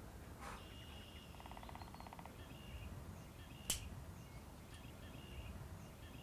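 Faint outdoor background with small birds chirping over and over in short high notes, a brief rapid trill about a second and a half in, and one sharp click a little past halfway.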